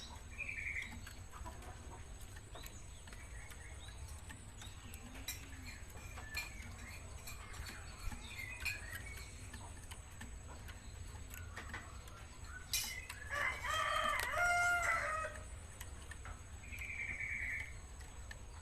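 Young Java sparrow giving short chirps now and then, with one louder, longer crow from a rooster about 13 seconds in, lasting about two seconds.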